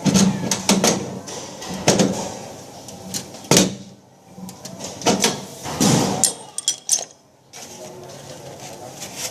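Irregular knocks, clatter and scraping of tools and parts being handled during an air conditioner installation, with a few sharp strikes and a couple of longer scrapes.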